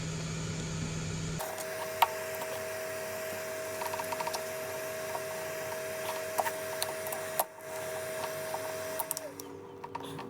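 Small clicks and scrapes of a plastic pry tool working under a smartphone battery, breaking the adhesive strips that hold it, over a steady electrical hum. One sharper click comes about two seconds in.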